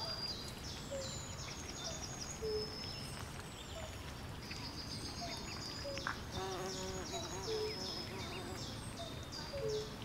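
Swamp soundscape of birds and insects calling: a dense chorus of short, high, rapid chirps and trills, with short low whistled notes about once a second and a brief lower call about six seconds in, over a steady low rumble.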